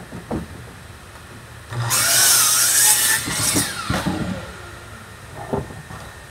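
Power saw cutting wood for about two and a half seconds: a loud rasping hiss over a motor whine that wavers and then falls away as the cut ends. A short knock comes shortly before the cut and another near the end.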